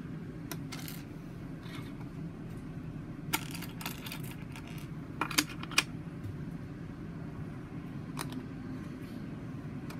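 Plastic Lego pieces clicking and tapping on a desk as round plates are set down and handled: a single click a few seconds in, a quick run of three louder clicks just past the middle, and a faint one near the end, over a steady low hum.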